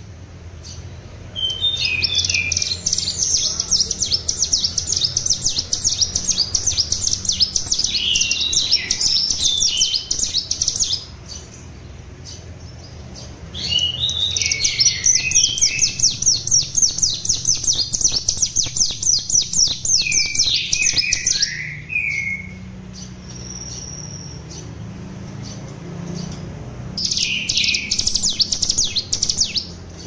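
Hill prinia (ciblek gunung) singing fast rapid-fire 'trotol' trills of quick repeated high notes, in three bouts: two long ones of about nine to ten seconds each and a short one near the end. It is a young bird in molt practising its full continuous song.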